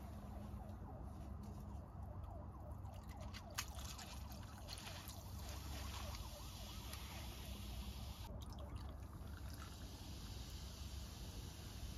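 Carbonated drinks poured over ice in cups: tonic water, then a second fizzy drink, with a steady faint fizzing crackle. There is one sharp click about three and a half seconds in.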